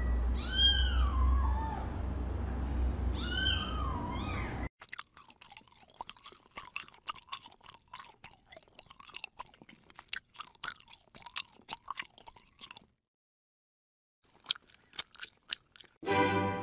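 A kitten meows twice, with a low hum underneath. Then a kitten suckles from a small milk bottle: a long run of quick wet clicks and smacks.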